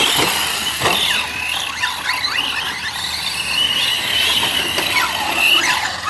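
Large-scale RC off-road trucks racing on dirt, their motors and drivetrains whining high and gliding up and down in pitch as they speed up and slow down.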